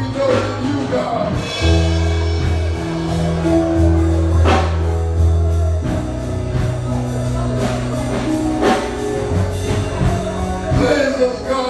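Live church music with singing over held bass notes and a steady drum beat.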